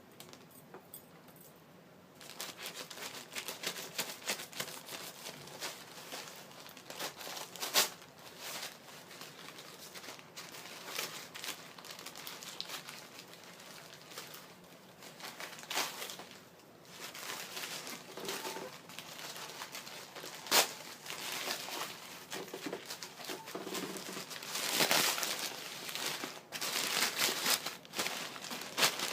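Package packaging being crinkled and torn open by hand: irregular crinkling with sharp snaps here and there, busier and louder in the last few seconds.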